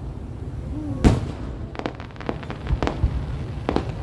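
Aerial fireworks going off: one loud bang about a second in, then a string of smaller, quicker pops, over a continuous low rumble of more distant bursts.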